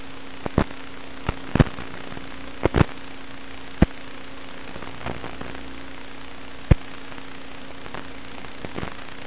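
Steady static hiss with a low steady hum, broken by about ten sharp crackling pops at uneven intervals, the loudest three spread through the first seven seconds.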